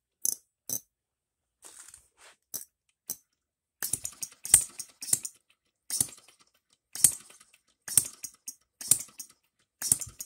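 Engine DIY three-stroke model gasoline engine with a 12 V buzz coil, flicked over by hand and catching: short, sharp, clicky firings, sparse and irregular at first. From about four seconds in they settle into a slow beat of roughly one firing a second, the low-speed running of this non-compression engine.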